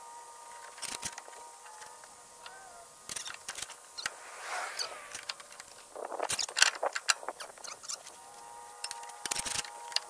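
A piece of angle iron clanking and scraping against the steel track frame and idler of a mini skid steer in several short bouts, the loudest a little past the middle, as it is levered against the track to force the grease tensioner to collapse.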